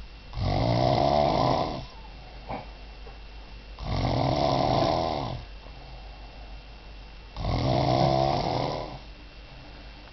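A man passed out drunk snoring heavily: three long, rattling snores, each about a second and a half, coming every three to four seconds.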